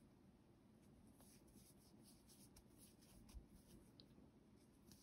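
Near silence: faint room tone with soft rustling and a few light ticks from yarn being worked on a crochet hook.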